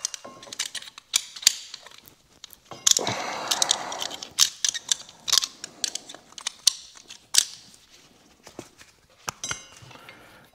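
A small metal pick and screwdriver scraping and clicking inside a muddy brake caliper, picking out caked dirt. Irregular sharp ticks, with a longer rasping scrape about three seconds in.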